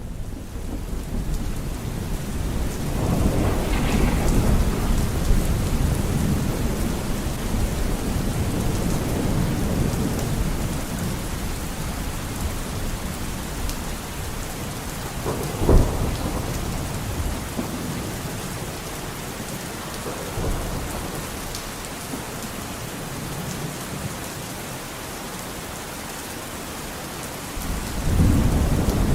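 Steady rain with thunder: long low rumbles swell a few seconds in and again near the end, and a single sharp thunderclap cracks about halfway through.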